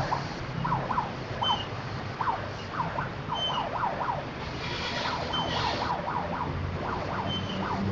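A musical 'telolet' horn playing a fast warbling run of short rising-and-falling tones, siren-like, with a short high beep about every two seconds and a low engine hum underneath.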